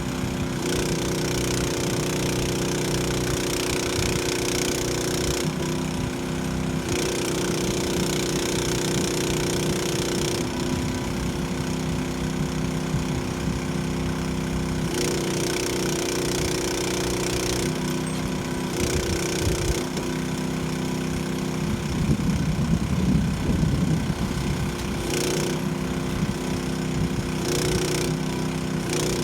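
Engine running steadily while the rockweed boat is unloaded, its note shifting every few seconds as it takes up and drops load, with a louder, rougher stretch about three quarters of the way through.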